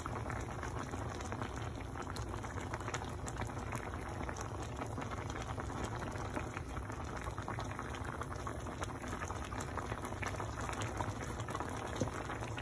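Thick spicy tteokbokki sauce bubbling at a steady simmer in the pot, a constant patter of many small pops.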